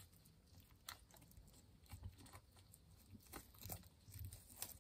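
Faint, scattered clicks and squelches of borax slime being squeezed and handled in the hands.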